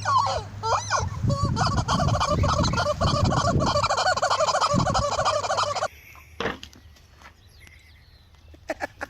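Turkeys gobbling: a loud, dense, rapid warbling chorus that cuts off abruptly about six seconds in, leaving a much quieter stretch with a few sharp clicks.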